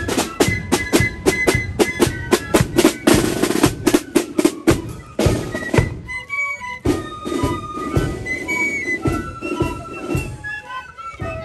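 Marching flute band playing: side drums beating in a fast, dense pattern with rolls, under a flute melody. About six seconds in the drumming thins out and the flutes come to the fore.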